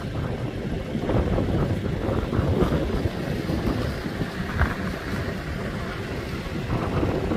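Off-road 4x4 vehicle driving along a rough track, its engine and tyre noise mixed with wind buffeting the microphone.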